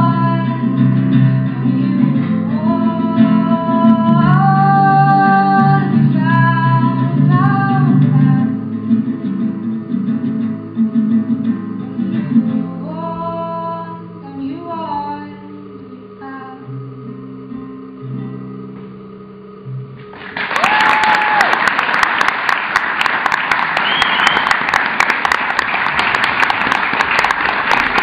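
A solo singer accompanies themself on acoustic guitar; the song winds down softly with a few last sung lines and low guitar notes. About two-thirds of the way through, applause breaks out suddenly, with a cheer, and keeps on steadily.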